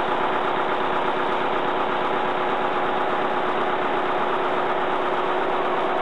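The 1951 McLaren four-cylinder diesel engine of a 55 kW Brush generator set running steadily, a fast, even chugging with a steady tone held above it.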